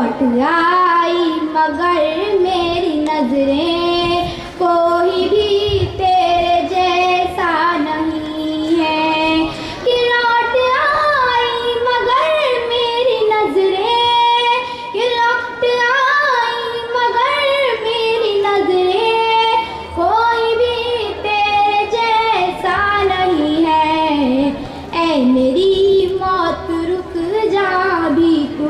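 A girl singing a naat, a devotional poem in praise of the Prophet, solo and unaccompanied, in a melodic voice with long held notes and ornamented turns.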